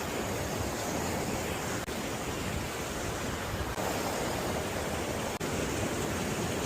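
Steady rushing noise of a mountain river, with wind buffeting the microphone.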